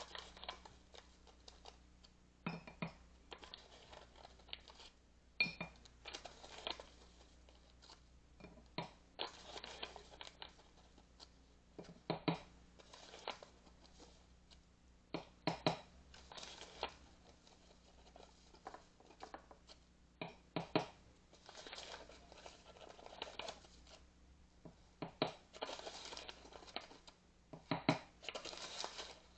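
Powdered pudding mix being spooned out of a crinkly paper packet, in short scattered rustles, with small clicks of a spoon against a glass Mason jar.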